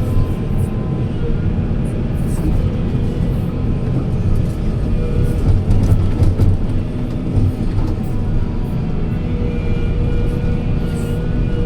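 Heavy diesel machinery running steadily with a deep, continuous rumble and a faint steady whine.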